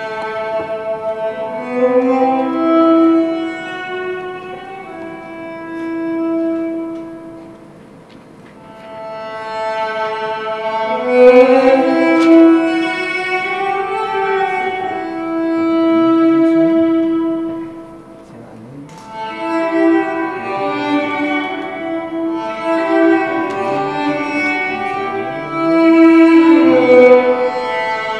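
Slow music played on bowed strings: long held notes that swell and fade in phrases, with a few sliding pitches.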